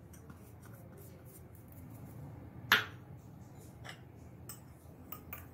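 A small ceramic bowl knocks once against a hard surface about halfway through as cornflour is tipped onto mushroom pieces in a plastic mixing bowl. Soft sounds of hands handling the floury mix and a few light taps follow near the end.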